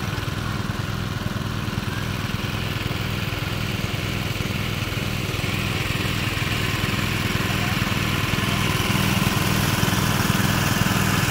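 Small engine driving a water pump, running steadily with an even low throb; it gets a little louder over the last few seconds.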